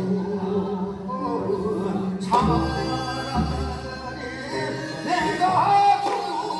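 Korean folk song (minyo) sung with a wavering, ornamented voice over instrumental accompaniment and a held low note. A sharp stroke comes about two seconds in, and the accompaniment grows fuller from there.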